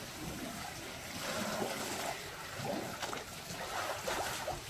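Elephants drinking from a swimming pool: faint water trickling and sloshing as their trunks draw from the pool, under a steady outdoor noise.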